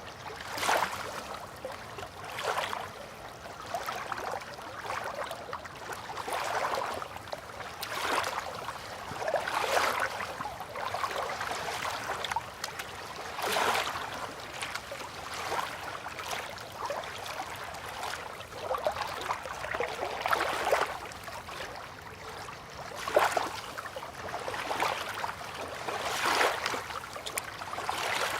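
River water lapping and splashing gently, in small irregular surges every second or two.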